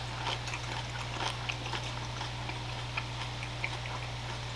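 A person chewing food close to the microphone: soft, scattered mouth clicks and small crunches over a steady low hum.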